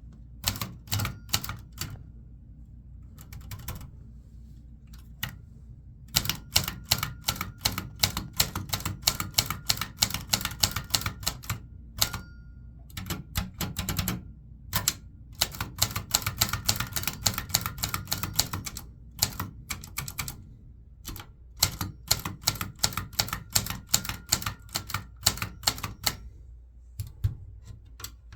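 Brother Webster XL-747 portable manual typewriter being typed on: runs of rapid key strikes, each a sharp clack, broken by short pauses.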